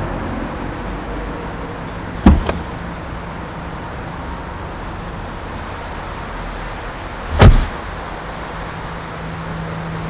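SUV driver's door opening: a sharp latch click and clunk about two seconds in, then a heavier thump about seven and a half seconds in, over a steady low hum.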